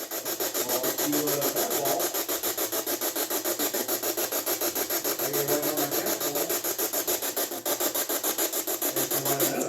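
Electronic ghost-hunting detector, most likely an ultrasound meter, putting out a steady scratchy static that pulses evenly several times a second.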